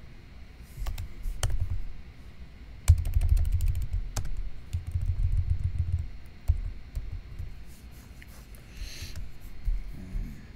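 Typing on a computer keyboard: scattered key clicks, then a quick run of keystrokes about three seconds in, with dull thuds under the clicks, thinning out toward the end.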